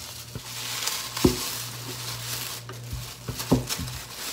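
Plastic cling wrap crinkling as it is peeled open from around a log of cookie dough, with two knocks on the counter about a second in and near the end.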